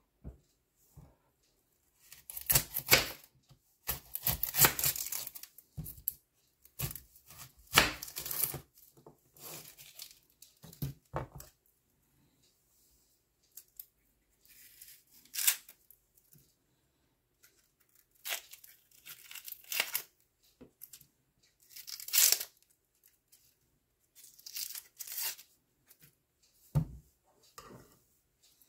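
Dry papery onion skin being peeled and torn off by hand, in irregular short bursts of tearing and rustling. Near the end, a knife knocks on the plastic cutting board.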